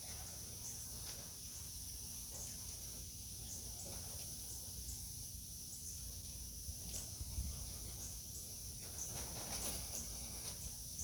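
Faint, steady high-pitched insect chorus, with low rumble and a few faint knocks.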